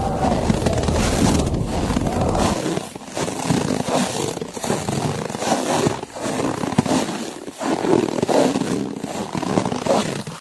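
Crunching snow, in irregular strokes about once a second, over a steady rush of blizzard wind. A low rumble eases off about two and a half seconds in.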